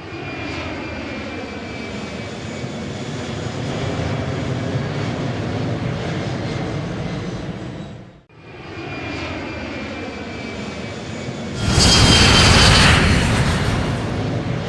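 Motor and propeller of a radio-controlled Bf 109 model plane running steadily. The sound drops away almost to nothing about eight seconds in, picks up again, and turns much louder for a moment near the end.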